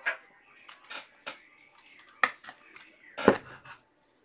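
Handling noise at a desk: an irregular run of sharp clicks and knocks from small hard objects being picked up and set down, the loudest about three seconds in.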